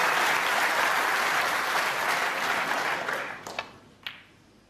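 Snooker crowd applauding a century break, the clapping dying away about three and a half seconds in. Near the end come two sharp clicks of cue and ball.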